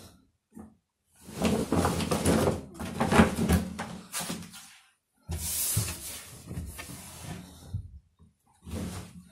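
Clothes rustling as they are pulled off a wooden wardrobe shelf, with handling knocks against the shelf, in three spells of noise with short silences between.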